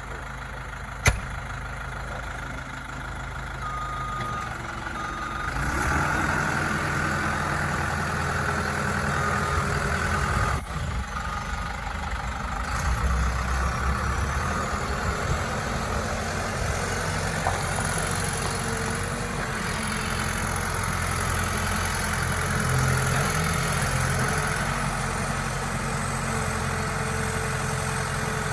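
New Holland 575E backhoe's diesel engine running steadily, with a sharp click about a second in and the engine getting louder around six seconds in.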